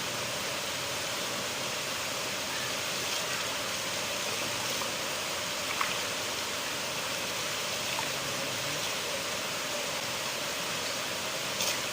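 River water flowing over rocks: a steady rushing, with a few brief splashes, one about halfway through and one near the end.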